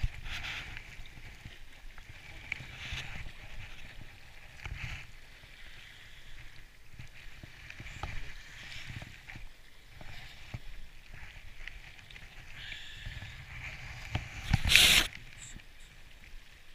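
Handling noise from a body-worn camera: jacket fabric rustling and rubbing against it, with scattered small knocks, and one loud rough scrape about fifteen seconds in.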